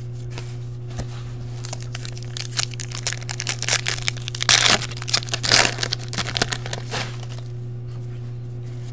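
Foil wrapper of a Topps Valor football card pack being crinkled and torn open, starting a couple of seconds in and loudest about halfway through.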